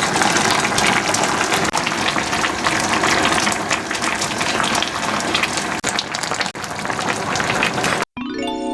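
A pot of pork-backbone soup boiling hard, a dense bubbling crackle. About eight seconds in it cuts off abruptly and a ringing musical chime begins.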